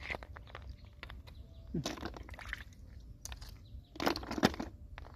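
Hands scooping large freshwater snails out of shallow muddy water: water splashing and sloshing, with shells clicking against each other, in two main bursts about two seconds in and about four seconds in.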